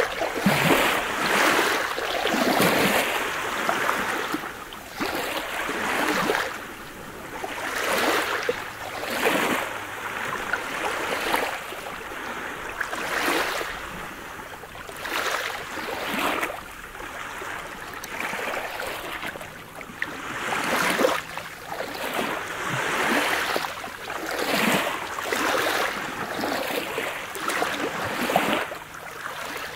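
Small waves on a calm sea lapping onto a pebble beach, each wash of water swelling and fading, one every second or two.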